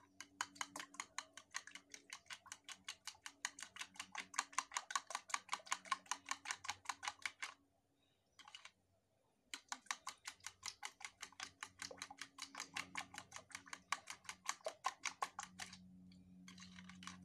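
Metal fork beating wet pancake ingredients in a plastic bowl, clicking against the bowl about six times a second. The clicking stops for about two seconds partway through, then resumes.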